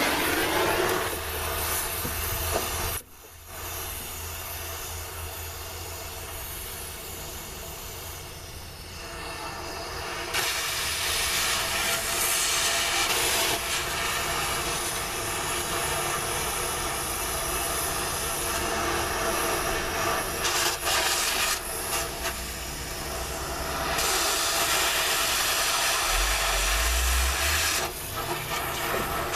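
Oxy torch hissing steadily as it cuts through a steel car cross member. The hiss cuts out sharply for a moment about three seconds in and grows louder again about ten seconds in. A steady low hum runs underneath.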